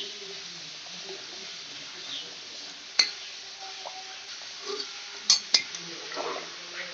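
Steel spoon stirring curry in an aluminium pressure cooker, knocking against the metal pot: a sharp clink about three seconds in and two more just after five seconds, over a steady hiss.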